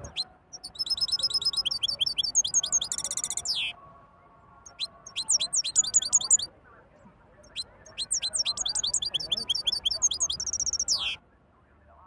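European goldfinch singing: three phrases of rapid, high twittering and trills, with short pauses between them.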